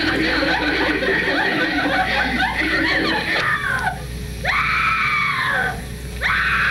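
A woman's voice screaming without words: a rapid jumble of high vocal cries, then two long high shrieks about two seconds apart, each sliding down in pitch.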